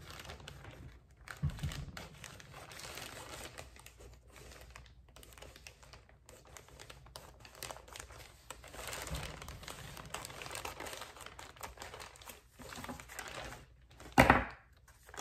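Plastic shipping mailer crinkling and rustling as it is cut open with scissors and handled, with one loud thump near the end.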